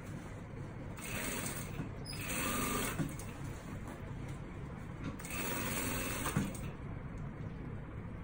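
Brother industrial single-needle sewing machine stitching through bulky layers of cotton pouch fabric in three short stop-start runs, over a steady low hum.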